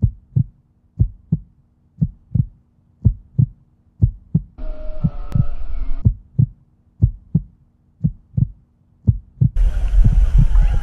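Deep double thumps like a heartbeat, about one pair a second, over a faint steady low hum. A burst of noise comes in about five seconds in, and a louder rush of noise near the end.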